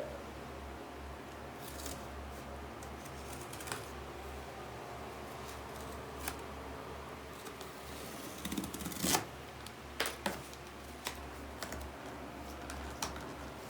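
Cardboard packaging being handled and worked open, with scattered clicks, scrapes and rustles and a few louder knocks and scrapes about nine to ten seconds in, over a low steady hum.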